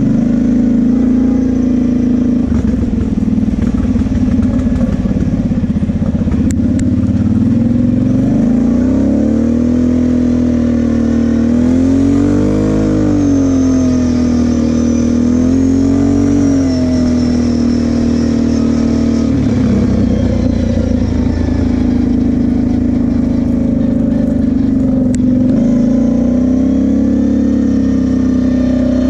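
Sport quad's engine running while riding at a steady pace, its pitch rising and falling twice near the middle as the throttle is opened and eased off.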